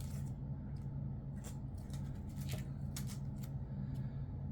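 Comic books in plastic bags being handled and shuffled through, with short crinkling rustles and light taps over a steady low hum.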